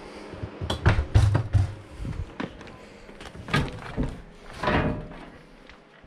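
A run of hollow thumps and knocks from moving through a travel trailer, with a cluster of heavy thumps about a second in, two sharper knocks later, and a longer rush of noise near the end.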